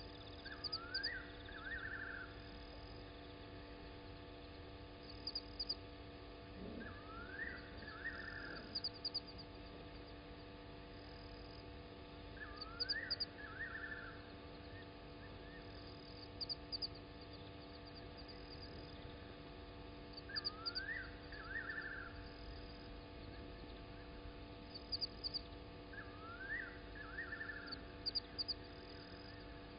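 A night animal's call repeated about every six seconds: a quick rising note, then a short buzzy trill. Faint quick clicking sounds high up between calls, over a steady low hum.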